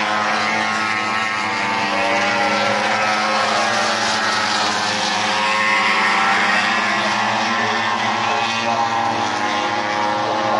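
Race motorcycle engines running out on the circuit: a steady mechanical drone of several engine tones that waver slightly, with no single bike passing close by.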